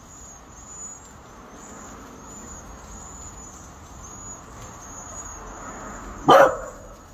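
A flock of cedar waxwings calling continuously: many thin, very high whistles, overlapping and repeating. About six seconds in, a brief loud sound cuts across them.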